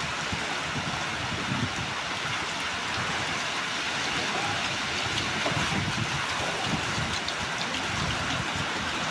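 Heavy rain pouring steadily, a dense even hiss with an uneven low rumble underneath.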